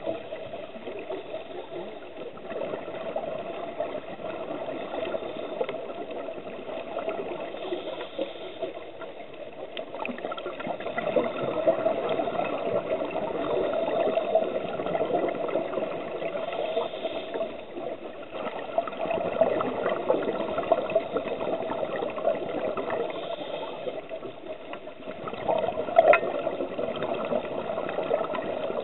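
Underwater sound of scuba divers' exhaled bubbles gurgling and rushing, swelling and easing every few seconds. A few sharp clicks stand out, the loudest near the end.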